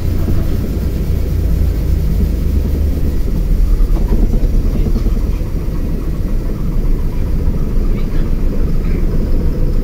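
LiAZ-5292.22 city bus running along its route, heard from inside the passenger cabin: a steady deep rumble of engine and road noise.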